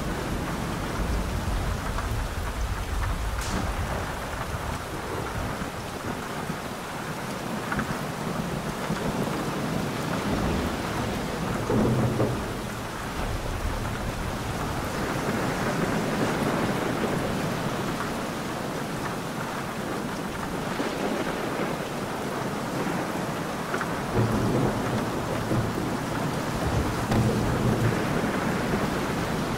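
Steady heavy rain with rolling thunder, the strongest rumbles about twelve seconds in and twice more near the end.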